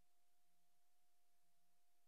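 Near silence: a faint, steady hiss with a thin, unchanging high tone.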